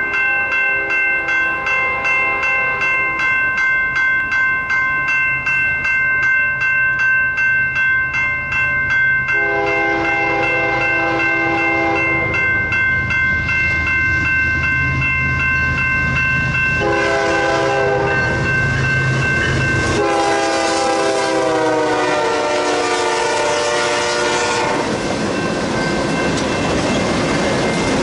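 Grade-crossing bell ringing while an approaching BNSF diesel freight locomotive sounds its air horn for the crossing in the long, long, short, long pattern, the last blast dropping in pitch as it passes. A low engine drone runs under the horn, and near the end the lead locomotives go by with loud wheel and rail noise.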